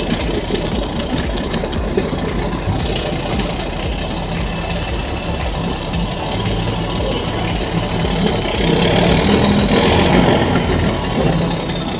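Boat engine running steadily, growing louder for a few seconds about nine seconds in.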